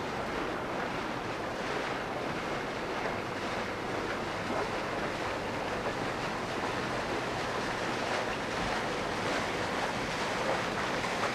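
Small motorboat approaching, its engine and wake giving a steady rushing noise that grows a little louder toward the end.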